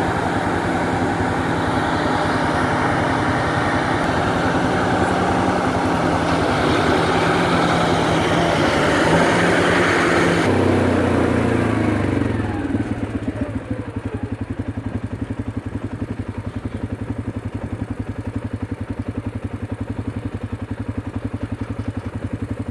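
Engine of John Deere cotton-harvesting machinery running at working speed under a dense whir. About ten seconds in it throttles down: the whir winds down in falling pitch and the engine settles into a steady idle with an even low pulse.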